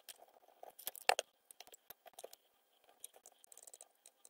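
Scattered light clicks and rattles of hands handling a hobby balance charger: plastic plugs and leads being moved and the charger's buttons pressed, the loudest click about a second in.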